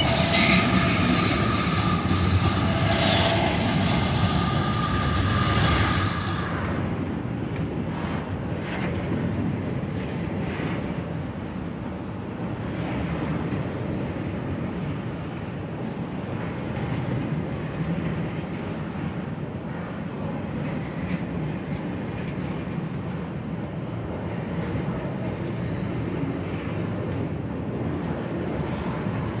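Long freight train of container-carrying flatcars rolling past at a level crossing: a steady rumble with clicking and clacking from the wheels on the rails. Over the first six seconds, high steady tones sound above it and the train is at its loudest; then the tones stop and the rolling goes on a little quieter.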